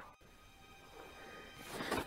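Faint background music with steady held tones, fading in about a second in and growing louder toward the end.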